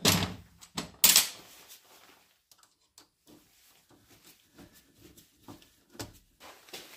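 Tools and parts being picked up and handled: two loud, short clatters, one at the start and one about a second in, then a run of faint clicks and knocks.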